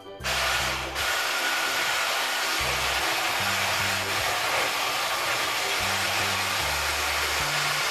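Electric stick blender running steadily in a bowl of liquid mixture, switched on about a fifth of a second in, with a steady motor whine over the noise of the blades.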